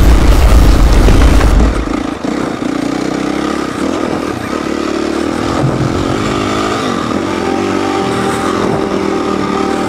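Dirt bike engine running as the bike rides a trail, its note wavering up and down briefly midway. A loud, deep rumble fills the first second and a half or so.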